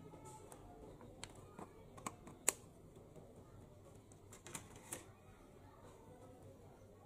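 Thin clear plastic clamshell food container being handled, giving about half a dozen sharp clicks and crackles, the loudest about two and a half seconds in.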